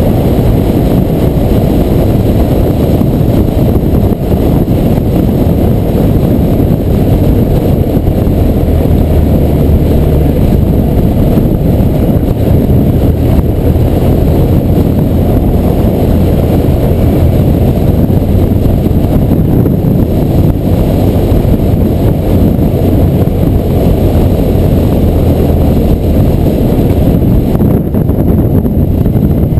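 Steady wind rush on the microphone at road speed, with the even drone of the BMW R1200R's flat-twin boxer engine cruising underneath.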